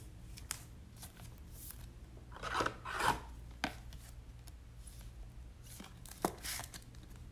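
Trading cards and plastic card holders being handled: brief, faint rubs and scrapes, loudest about two and a half to three seconds in, with a few light clicks.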